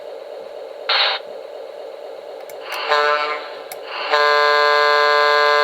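Diesel locomotive sound effect from a QSI Maxx Traxx model-train sound system: the engine idles steadily. A short hiss comes about a second in, a brief single-chime horn toot near three seconds, and then a long, steady horn blast starting about four seconds in.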